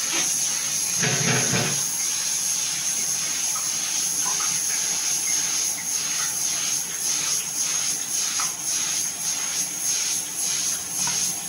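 Steam jetting from the open vent of an aluminium pressure cooker with a steady hiss. From about halfway it pulses roughly twice a second. A brief lower sound comes about a second in.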